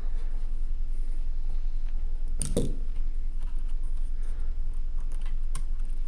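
Small clicks and one louder clatter about two and a half seconds in, from the ThinkPad T430's internal speaker and plastic parts being handled and pulled out of the laptop, over a steady low hum.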